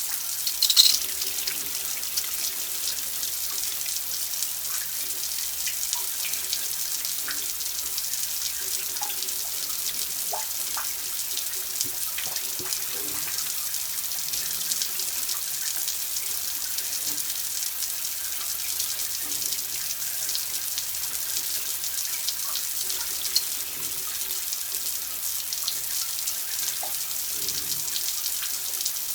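Water running steadily in a continuous stream, with small scattered drips and splashes; a brief louder splash comes about a second in.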